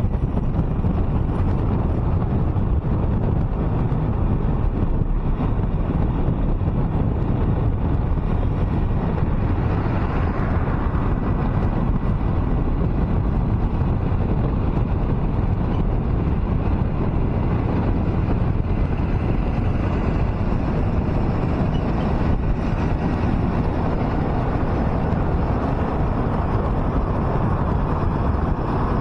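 Car driving at highway speed: steady road and wind noise, heaviest in the low end, with a brief swell about ten seconds in.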